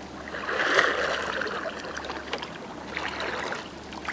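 Kayak paddle stroking through lake water, splashing most strongly about a second in, with water trickling off the blade and a few light knocks near the end.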